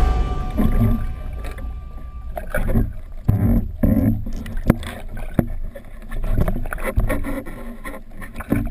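Water sloshing and bubbling around a camera in the sea, with a low rumble and scattered sharp knocks.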